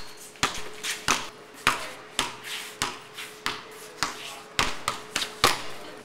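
A Wilson basketball dribbled on a concrete sidewalk, bouncing steadily about twice a second.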